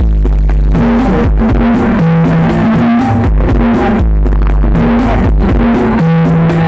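Music played very loud through a large carnival sound system, with heavy deep bass and held bass notes, and a falling sweep at the start and again about four seconds in.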